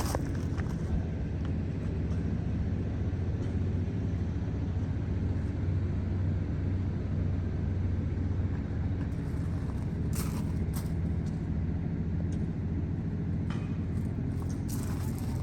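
New Holland B95 loader backhoe's diesel engine running steadily at a constant speed, with a few light clicks about two-thirds of the way through.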